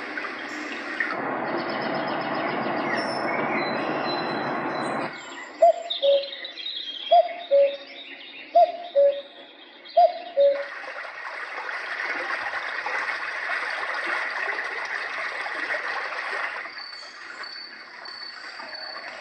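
Roffie white noise machine playing its nature sound tracks one after another through its small speaker. A steady rushing track gives way to a repeated two-note call about every second and a half, then another rushing track, and from about 17 seconds in a track with a high, steadily pulsing chirp.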